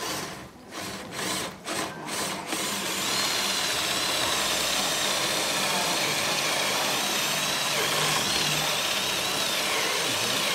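Cordless drill boring up into a wooden door-frame header to make the hole for a drop-bolt lock. After a few short bursts it runs steadily from about three seconds in, its whine wavering as the bit works through the wood.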